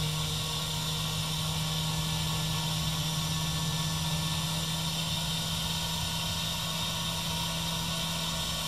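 Hitachi electromagnetic chuck and its controller on a Brown & Sharpe Micromaster 618 surface grinder, humming steadily with a hiss while being switched off. The hum cuts out with a click near the end as the chuck goes off.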